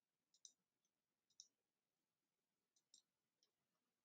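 Near silence with a few faint computer mouse clicks.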